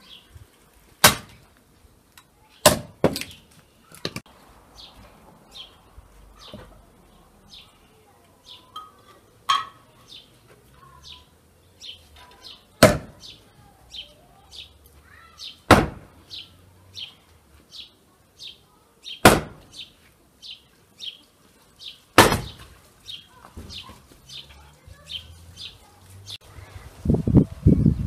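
Sharp wooden knocks of split firewood logs being picked up and knocked together at a woodpile, about nine of them, irregularly spaced a few seconds apart. Underneath, a small bird repeats one short chirp over and over, about two a second.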